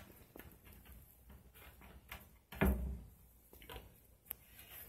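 Light clicks and rustles with one dull, heavy thump a little past halfway through.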